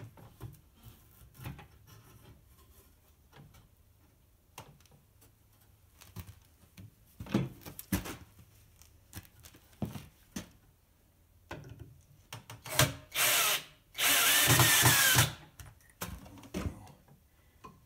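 Cordless drill driving screws into a wooden frame: a short burst about 13 seconds in, then a longer run whose whine bends in pitch as the screw goes in. Before that, scattered light knocks and taps of wood being handled.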